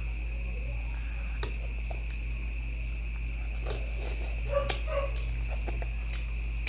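Steady high insect chirring, like crickets, over a low hum, with a few short clicks and faint brief tones about two thirds of the way through.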